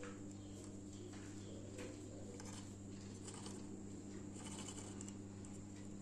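Faint scattered clicks and scratches from a pair of caged Fischer's lovebirds moving about, with a brief scratchy chatter about four and a half seconds in, over a steady low hum.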